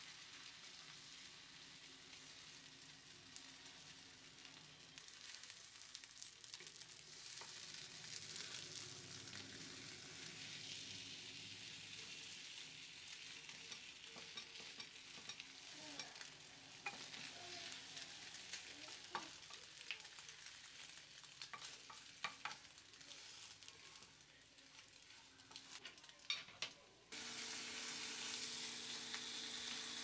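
Beaten egg sizzling in a hot skillet as chopsticks stir and scramble it, with scattered light taps of the chopsticks and a wooden spatula against the pan. Near the end a steadier, louder hiss starts suddenly.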